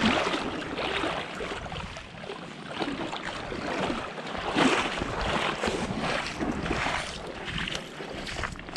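Wind buffeting the microphone in a low, uneven rumble, with irregular scuffs and rustles of handling and movement over it.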